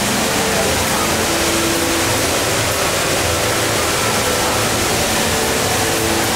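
The HSBC Rain Vortex indoor waterfall pouring steadily: a constant, unbroken rush of falling water.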